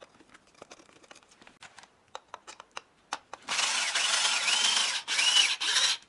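Cordless drill-driver driving countersunk self-tapping screws into a wooden backing plate, in two runs of about a second and a half and just under a second, its motor whine rising and dipping in pitch. Light handling clicks come before it.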